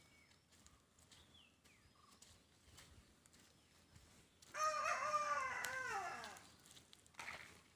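A rooster crows once, a single cock-a-doodle-doo of about two seconds starting about four and a half seconds in, its pitch falling away at the end.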